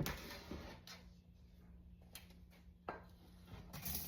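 Faint cooking sounds from a pot of rice frying in olive oil with garlic and onions: a short hiss that fades over the first second, then a few light clicks and knocks of utensil on pot.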